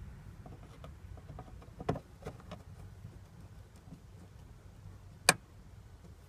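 Light clicks and scraping of a screwdriver turning a screw into the fuel pump access cover, with a clearer click about two seconds in and one sharp, loud click a little past five seconds.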